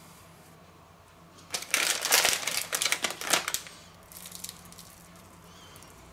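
Plastic packet of flaked almonds crinkling as it is handled: a dense crackle lasting about two seconds, followed a moment later by a few fainter crackles.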